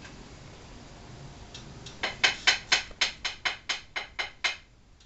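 A quick, even run of about a dozen sharp clicks, roughly five a second, starting about two seconds in and growing fainter toward the end.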